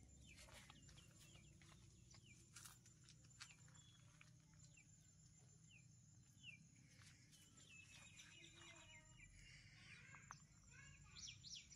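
Near silence: faint outdoor ambience with a few distant bird chirps, short and scattered.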